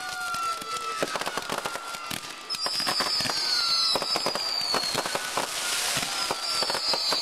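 Aerial fireworks bursting, with a rapid run of cracks and bangs. Two long high whistles, each falling slightly in pitch, come through the crackle.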